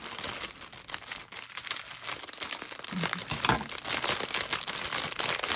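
Packaging being handled, crinkling and rustling in quick irregular crackles.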